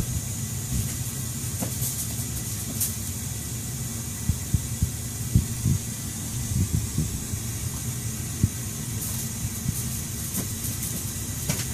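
Steady low rumble and hiss of a running household appliance, with a few soft knocks scattered through it.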